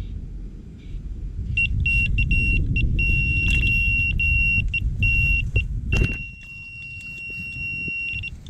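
Electronic carp bite alarm sounding a run: a fast string of high beeps that merges into one continuous tone as a carp pulls line off the reel. There is a low rumble underneath and a sharp knock about six seconds in.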